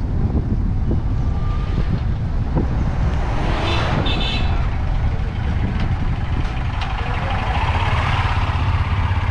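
Steady engine rumble and road noise from a vehicle driving. A short, high-pitched honk from a horn about four seconds in, and a louder rush near the end as traffic passes.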